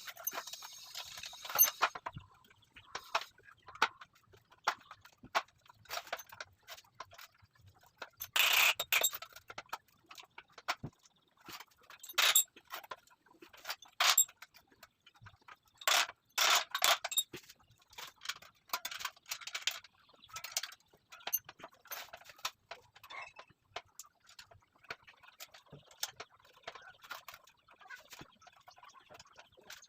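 Irregular knocks and clinks, with a few short louder scrapes, from metal parts being handled.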